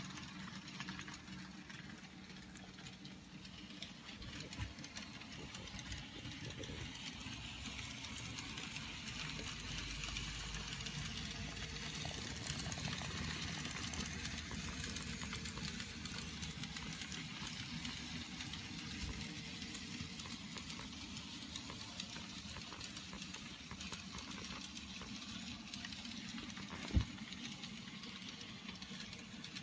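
N gauge model train running: a steady small-motor hum with a light rattle of wheels over the track. There is one sharp click near the end.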